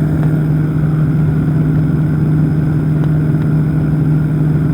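Powered parachute's engine and propeller running at a steady drone in flight, holding one even pitch with no change in throttle.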